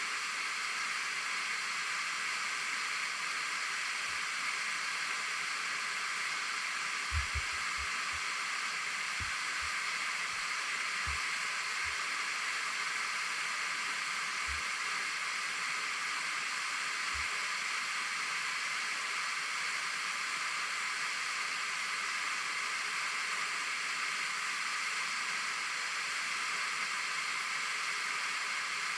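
Waterfall rushing in a steady, even hiss of falling water, with a few soft low bumps in the first half.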